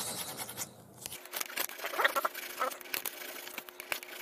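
Small flat file scraping back and forth across the end of a carbon fishing-rod section, roughening its surface so the epoxy will bond. The rasping strokes pause briefly about a second in, then go on as a run of quick, uneven scrapes.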